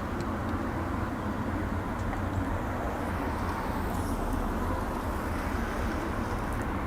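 Steady low background rumble of outdoor ambience, like distant traffic, with no distinct events.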